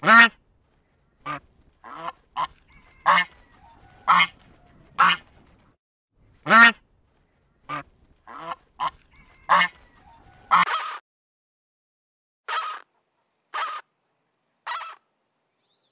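Knob-billed domestic goose honking loudly and repeatedly, about a dozen honks over ten seconds. After a short pause come three shorter, rougher calls about a second apart from greater flamingos.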